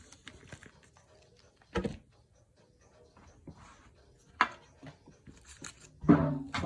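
Pokémon trading card packs being handled and set down on a surface: soft rustles and clicks, with three louder knocks about two, four and a half and six seconds in, the last the loudest.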